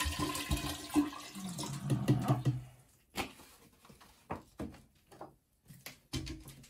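Water pouring from a plastic bottle into a large glass jar, stopping about two and a half seconds in. It is followed by scattered light clicks and knocks of plastic bottles being handled and set down.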